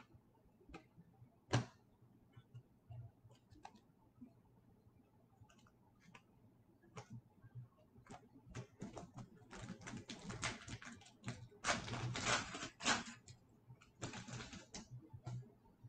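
Foil wrapper of an O-Pee-Chee Platinum hockey card pack crinkling and tearing open, in dense crackly spells over the second half. Before that come a few light clicks of cards being handled.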